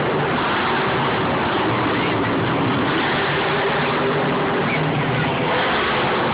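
Monster truck engines running steadily, a continuous dense engine din with several held pitches, mixed with stadium crowd noise.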